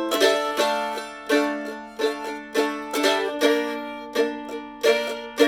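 Mandolin playing an instrumental break without singing: picked chords struck sharply and left ringing, a new strike every half second or so.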